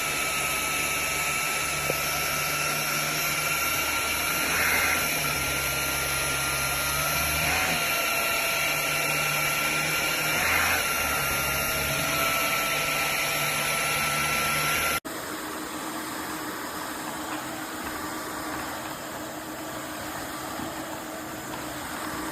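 roborock F25 cordless wet-dry vacuum running with a steady motor whine. About fifteen seconds in it cuts off abruptly and a quieter, different steady motor sound carries on.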